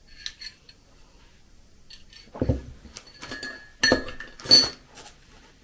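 Faint sipping of tea from a ceramic mug, then a dull thump as the mug is set down on the table about two and a half seconds in. A moment later comes a little crinkling of a plastic bag, then two sharp, briefly ringing clinks of tableware, the loudest sounds.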